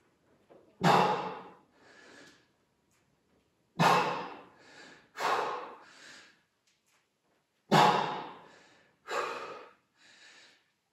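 A person breathing hard from exertion: about five sharp, forceful exhales, each trailing off and followed by a softer breath.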